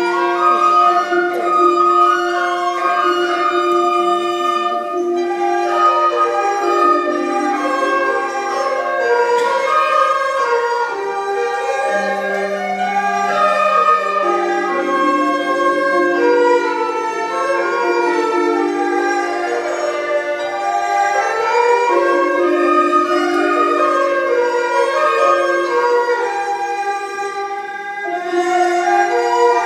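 Chinese traditional orchestra playing: bowed erhu and other instruments carry a flowing melody over held low notes that shift pitch every few seconds.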